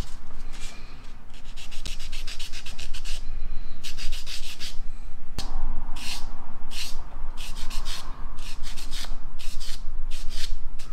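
A sanding sponge scrubbed rapidly back and forth over a small resin model part, in spurts of quick strokes with short pauses, cleaning up the part.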